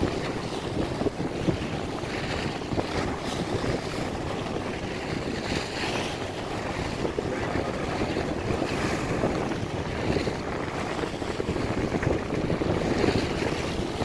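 Wind buffeting the microphone over the churning sea between a ship and a workboat lying alongside, with a boat's engine running underneath. The noise is steady, with no single strike or tone standing out.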